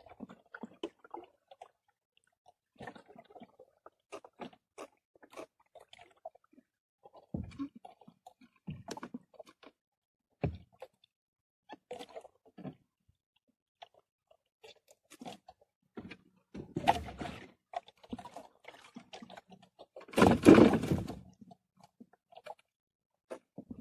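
Handling noise from a fisherman working a handline and bait in a wooden boat: scattered small clicks, taps and knocks. Two louder, rougher noises about a second long come around two-thirds of the way in and again near the end.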